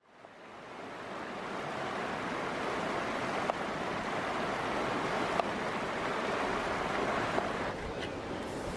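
Rushing water of a fast-flowing river or stream, fading in at the start, with a few faint taps of a knife on a wooden cutting board.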